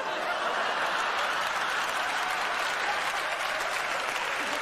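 Theatre audience applauding steadily in response to a comedian's joke.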